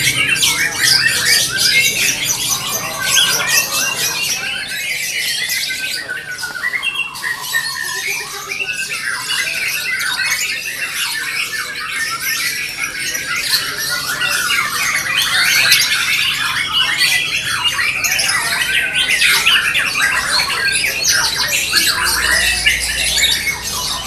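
Several caged white-rumped shamas (murai batu) singing at once in competition: a dense, unbroken tangle of quick, high, shifting song phrases.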